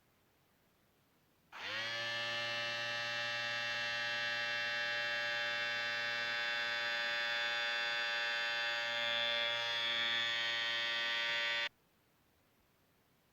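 A steady, loud buzzing tone with many overtones, starting sharply about a second and a half in, holding at one pitch for about ten seconds, then cutting off suddenly.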